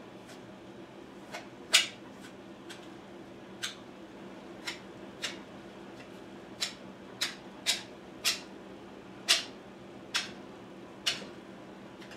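Hand tool working at a rifle stock's forend: about a dozen short, sharp scraping or cutting strokes at irregular intervals, the loudest about two seconds in, over a steady low hum.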